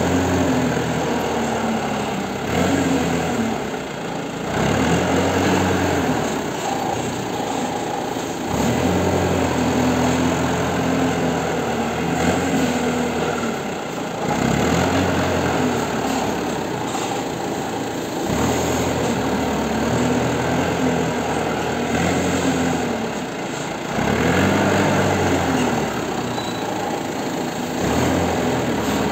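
Forklift engine running and revving up and down over and over, a rise every few seconds, as the machine works its lifting and pushing under load.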